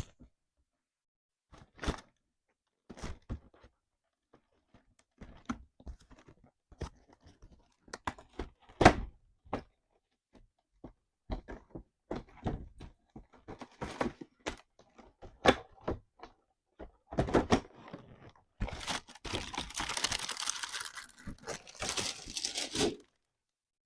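A cardboard sneaker box being handled and opened: scattered knocks and taps, then about four seconds of rustling, crinkling packaging paper near the end.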